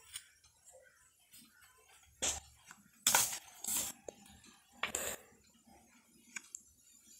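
Sketchbook pages being turned by hand: a few short rustles and flaps of paper, the loudest clustered between about two and five seconds in.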